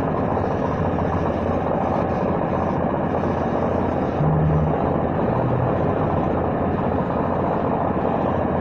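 Small belt-driven air compressor running steadily, its pump turned by a 1.5-horsepower motor, while air is drawn through a paint spray gun.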